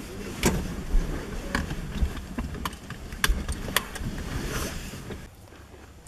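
Car cabin noise: a steady low rumble with a string of sharp clicks and knocks, about eight in five seconds, which go quiet near the end.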